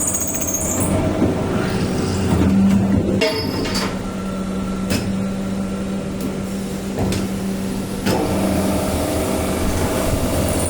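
Multi-spindle drilling machine running: a steady motor hum under a rattling mechanical clatter, with a few sharp knocks.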